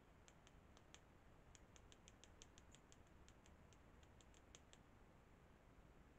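Faint run of about twenty quick, high-pitched ticks, irregularly spaced, stopping about five seconds in, over a quiet background hiss.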